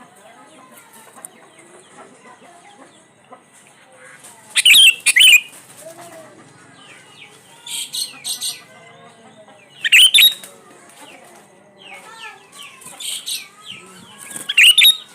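Sooty-headed bulbuls calling: a busy chatter of short chirps and whistled notes, broken four times by loud, harsh, scratchy bursts.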